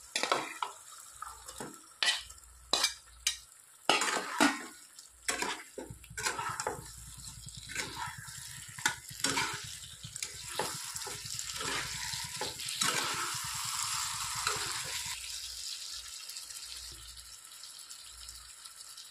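Chicken pieces added to hot masala in a non-stick kadai and stirred with a spatula: repeated sharp knocks of the spatula against the pan. A sizzle builds about ten seconds in and dies down about fifteen seconds in.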